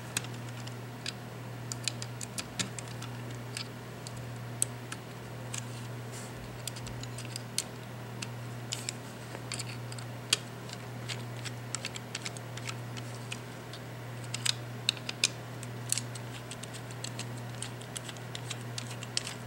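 Small, irregular clicks and ticks of a precision screwdriver bit working tiny screws out of a computer mouse's circuit board, with plastic parts of the mouse being handled. A steady low hum runs underneath.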